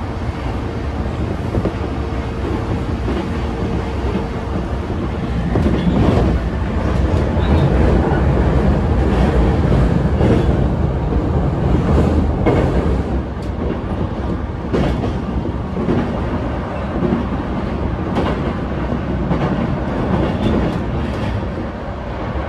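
E233 series electric train heard from inside the carriage while running at speed: wheels rumbling on the rails with scattered rail-joint clicks. A steady motor tone sounds for the first five seconds, and the running noise grows louder for about eight seconds in the middle, while the train crosses a small river.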